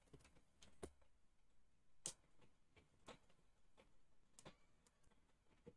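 Near silence: room tone with a handful of faint, irregular clicks or taps.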